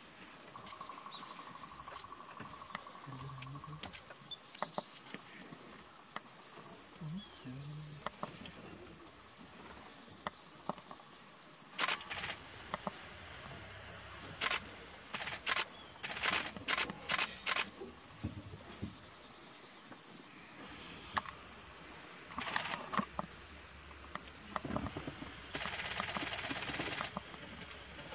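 Insects chirring steadily, with clusters of sharp camera shutter clicks from about twelve seconds in, the loudest sounds, ending in a rapid continuous burst of shutter clicks lasting about a second and a half near the end.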